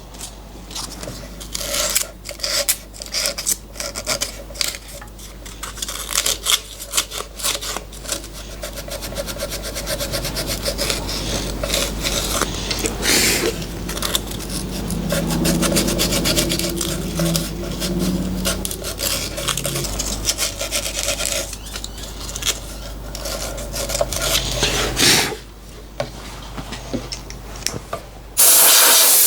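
Milling machine with a boring head cutting out a hole: the motor hums steadily under rapid, irregular scraping and clicking from the cutter. A loud hiss starts near the end.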